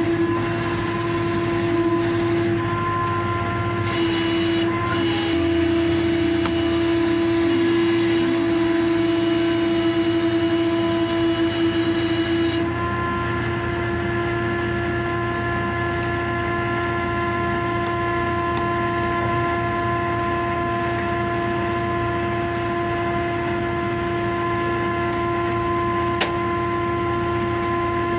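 Steady mechanical drone of running machinery: a constant high hum with several steady overtones that shifts slightly in tone about halfway through.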